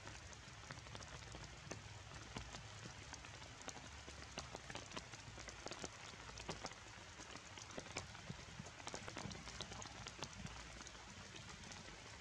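Rain falling on forest foliage: a steady hiss dotted with many sharp ticks of drops striking wet leaves.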